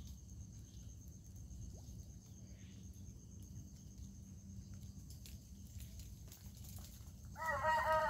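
A rooster crows once near the end, a pitched call of about a second that bends and falls away at its close. Under it runs a low steady rumble and a faint high insect trill.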